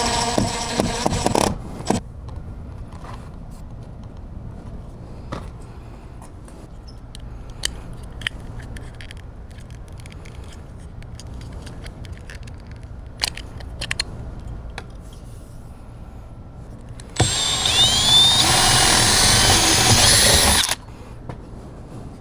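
Power drill running in two bursts, briefly at the start and for about three and a half seconds near the end, its motor pitch shifting slightly under load. Scattered clicks and knocks of handling fall between the two runs.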